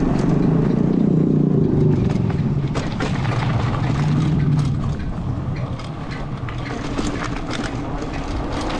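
Wind buffeting the action camera's microphone and tyre rumble as a mountain bike coasts fast downhill on asphalt, heavy for the first few seconds and then easing, with scattered small ticks and rattles.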